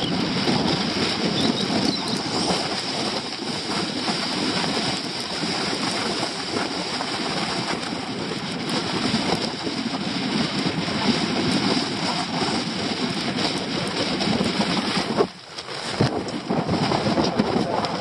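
Strong, gusty storm wind buffeting the microphone, with the nylon tent's fabric flapping in it. The wind drops for under a second about fifteen seconds in, then picks up again.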